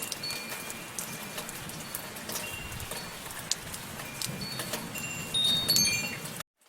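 Steady light rain with wind chimes ringing now and then in high, sustained tones, a busier cluster of chimes near the end. The sound then cuts out suddenly just before the end.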